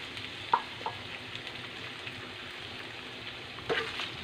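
Shredded chicken breast sizzling in a nonstick frying pan, with a sharp tick about half a second in. Near the end a spatula starts stirring, with a few knocks and scrapes against the pan.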